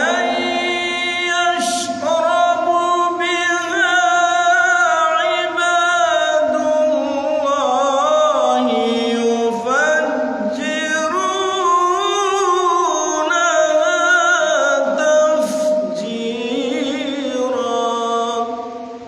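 A man reciting the Quran in the melodic qari style: one long sung phrase with ornamented, wavering runs of pitch, fading away near the end.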